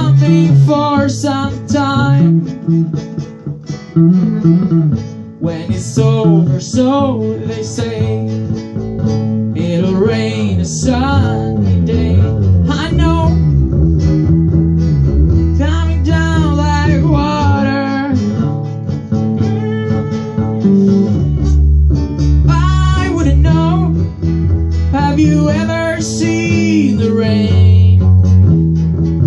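Two guitars, one of them acoustic, strumming chords, with a voice singing along.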